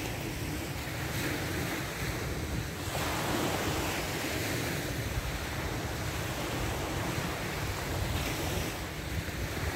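Small waves breaking and washing up on a sandy shore, with wind buffeting the microphone.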